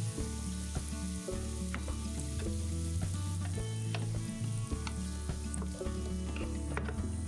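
Diced onion sizzling in olive oil in a nonstick frying pan, stirred with a wooden spatula that scrapes and taps the pan now and then, with the onion frying until translucent. Background music with a steady bass plays underneath.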